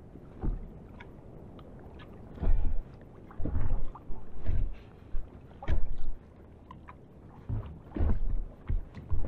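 Irregular low thumps and knocks on a small inflatable boat, about nine of them with quiet gaps between, some in quick pairs near the end, along with the handling of a caught pollock.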